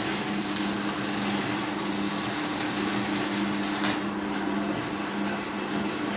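Stick (SMAW) welding arc crackling and hissing while running the vertical-up root pass of a V-groove joint, with a steady low hum under it. The arc breaks off about four seconds in, marking the end of the root pass.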